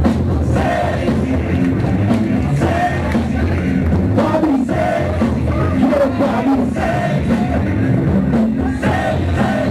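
Loud music with singing over a heavy bass beat, the DJ's track for a breakdance battle.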